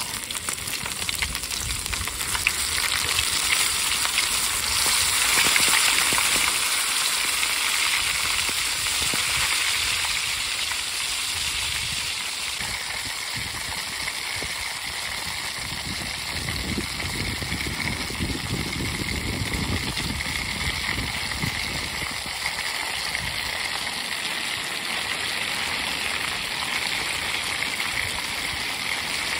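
Wild mountain grapes dropped into hot oil in an aluminium foil pan: the oil bursts into sizzling at once, loudest about five seconds in, then keeps up a steady frying hiss as the grapes are stirred.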